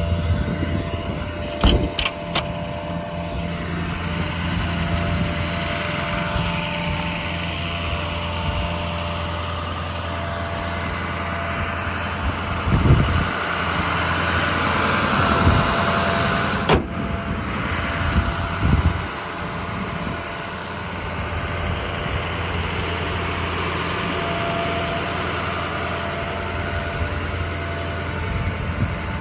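Ford F550's 6.0 Power Stroke diesel running steadily while it drives the truck's Ingersoll Rand hydraulic air compressor. There are a few sharp clicks about two seconds in and a single sharp click a little past the middle.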